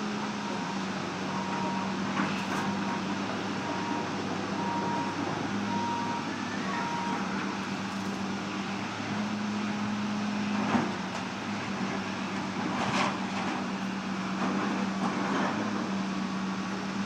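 John Deere backhoe's diesel engine running steadily. For the first several seconds a back-up alarm beeps about once a second. A few sharp knocks come later, the loudest about two-thirds of the way in.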